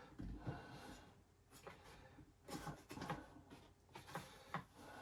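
Faint scattered clicks and knocks of hands working a strap latch on the plastic body of a DeWalt wet/dry vacuum, trying to unhook it.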